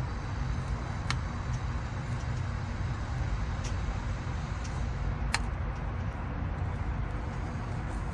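Steady low rumble of outdoor background noise, with a few sharp clicks about a second in and again about five seconds in.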